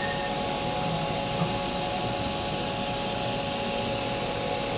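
The X axis of a Haas VF2SS vertical machining center being jogged: the axis servo drive and ball screw run steadily with a few thin, steady tones. The sound is nice and quiet, the sign of an axis in good running order.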